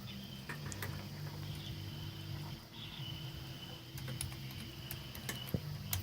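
Scattered keystrokes and clicks on a computer keyboard over a steady low hum, with a thin high whine running through the middle.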